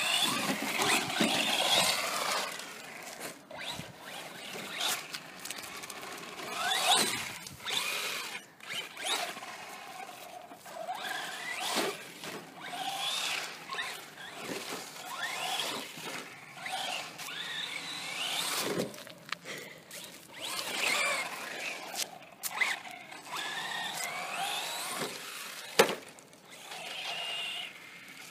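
Brushless electric motor of a Traxxas Slash VXL 4x4 RC truck whining as it is repeatedly throttled up and back off, the pitch rising and falling again and again, with scattered clicks and knocks. One sharp knock near the end is the loudest sound.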